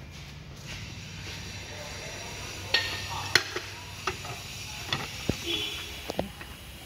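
Wooden board knocking and scraping on a mitre saw's table while it is set against the fence: a string of about six sharp clacks through the second half.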